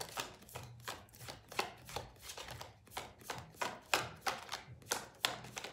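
A deck of tarot cards being shuffled by hand in an overhand shuffle: a steady run of short card slaps, about three a second.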